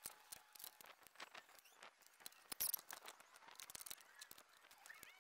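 Scattered light clicks and knocks of clamps and wood blocks being handled and set in place, with one louder clatter about two and a half seconds in.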